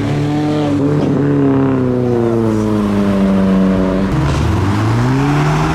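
Car engine running at low speed, its pitch sinking slowly for about four seconds, then dipping and rising again near the end as the car accelerates away.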